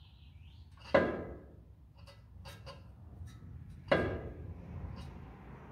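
Two sharp knocks about three seconds apart, each ringing briefly as it dies away, with a few light clicks between them.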